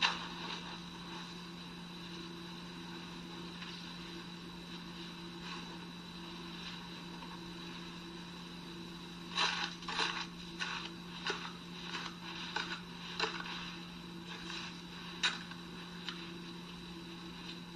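Steady low hum under hiss. About halfway in, a run of short crunching scrapes comes at roughly one or two a second as snow and cloth are worked by hand over a brush pile.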